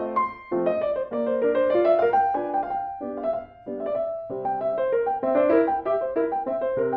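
Piano music with a quick, busy run of notes that breaks off briefly twice.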